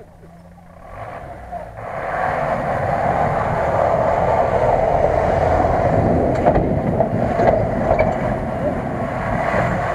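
GAZ-66 truck's engine working hard, growing louder over the first two seconds as the truck comes close, then a steady loud drone as it drifts across the snow.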